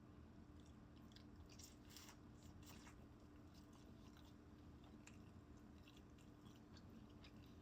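Faint close-up chewing of fried chicken, with soft scattered crunches and wet mouth clicks over a low steady hum.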